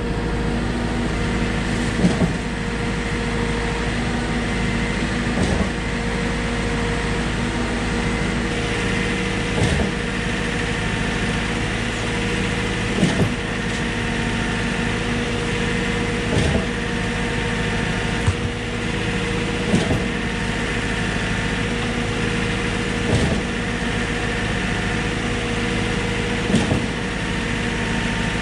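Trailer concrete pump running steadily, its engine humming, with a short clunk about every three and a half seconds as the pump cycles through its strokes.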